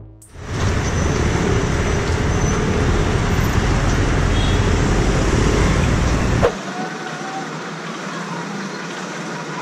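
Motorcycle riding noise in city traffic, picked up on an action camera: a loud, even rush of wind and engine with a heavy low rumble. About six and a half seconds in there is a click, and the low rumble drops away, leaving quieter traffic noise.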